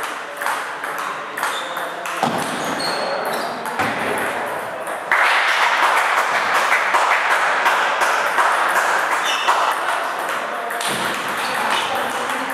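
Table tennis ball clicking sharply off the bats and the table in a rally. From about five seconds in to about eleven seconds, a louder steady background noise sits under the clicks.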